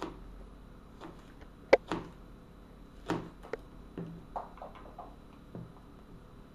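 Kitchen knife chopping down onto a tablet's film-protected screen: a run of sharp, irregular taps and clicks as the blade strikes the screen, the loudest one a little under two seconds in.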